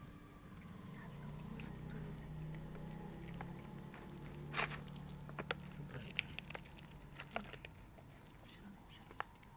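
Cats crunching dry kibble: scattered sharp crunches and clicks, mostly in the second half, over a faint low hum.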